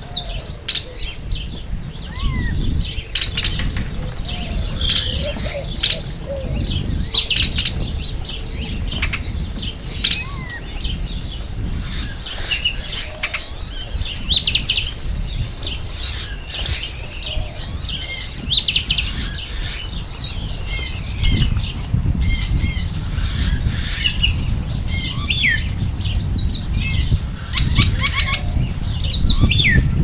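Great-tailed grackle calling over and over: a busy run of sharp clicks, squeaky whistles and quick rising notes, with a steady low rumble underneath.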